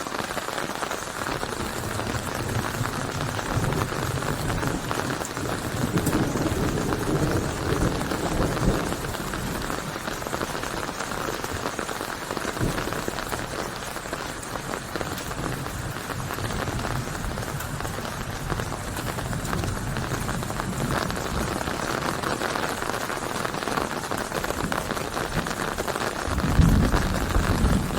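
Steady rain falling, a dense even patter. A low rumble swells up twice, the louder one near the end.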